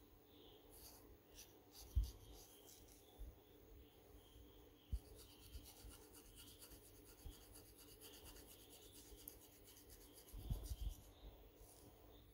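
Faint scratching and rubbing of a rat-tail comb's metal pin and fingertips against hair and scalp. Quick fine strokes come close together from about a third of the way in until near the end, with a few soft low bumps.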